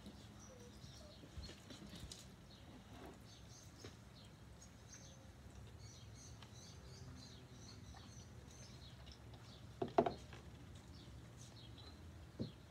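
Quiet eating sounds: faint chewing and small mouth clicks while noodles are eaten, with one short louder sound about ten seconds in.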